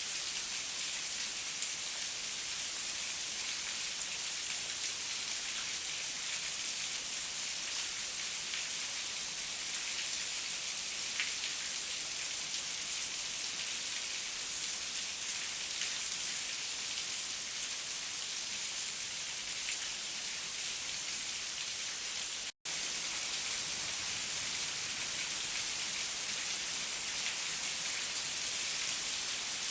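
Heavy rain falling steadily: a dense, even hiss of drops with faint scattered individual drop ticks. The sound cuts out completely for an instant about two-thirds of the way through.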